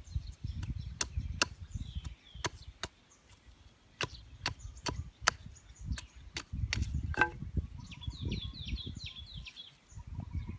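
Heavy bush knife chopping and shaving a thin wooden stick against the ground: irregular sharp wooden knocks, with short pauses between runs of strokes.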